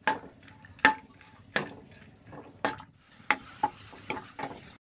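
Spatula stirring cashews, almonds and raisins frying in ghee in a non-stick kadai: seven or so sharp knocks and scrapes against the pan at irregular intervals, with a faint sizzle of the hot ghee growing near the end.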